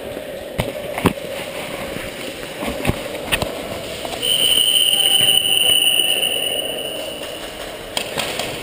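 Sharp knocks and clicks of a GoPro HD Hero camera being handled and refitted to its mount. Then, about four seconds in, a steady high-pitched tone sounds for about three seconds.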